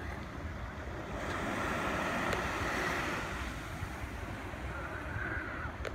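Outdoor wind buffeting the microphone in uneven low rumbles over a steady rushing noise, with no distinct events.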